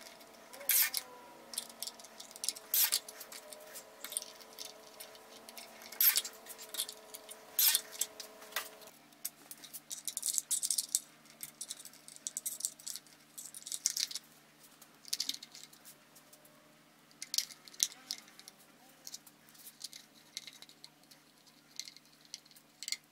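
Scattered light clicks, taps and rattles of small screws and a hard plastic switch box being handled and fastened to a plywood table edge, over a faint steady hum.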